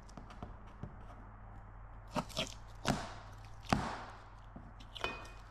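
A few light knocks and clicks, five in all, spread over several seconds, over a faint steady low hum.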